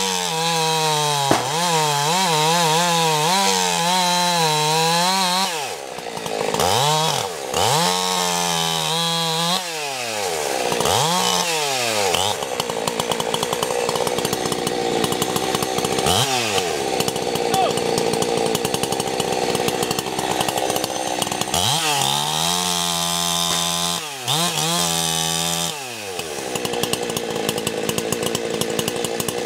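Chainsaw running while cutting into the base of a standing tree during felling. The engine pitch wavers and several times drops sharply and climbs back as the throttle is let off and opened again.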